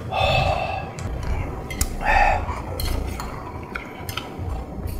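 Metal chopsticks and spoons clinking against bowls and plates while eating, with several sharp clinks scattered through. There are two short wordless voice sounds, one at the start and one about two seconds in.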